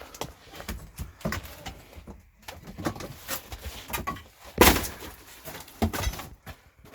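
Irregular knocks, clicks and clatter of an RV's interior fittings being pried and knocked loose, with one loud bang about halfway through.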